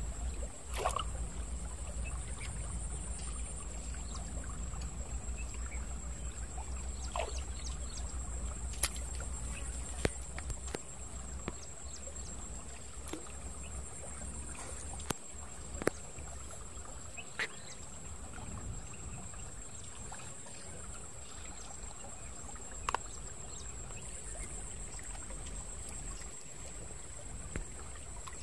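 Small stream flowing steadily, with a steady high-pitched whine throughout and a few sharp clicks.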